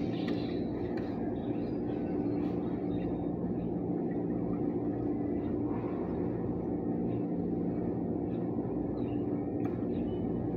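Machinery running with a steady, constant-pitched low hum.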